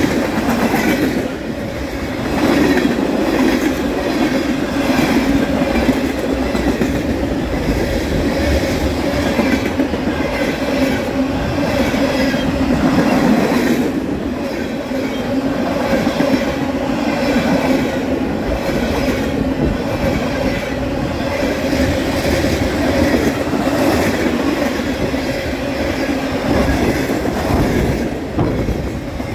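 Freight cars of a long mixed freight train rolling past: a steady rumble of steel wheels on rail, with repeated clacking as the wheels cross rail joints.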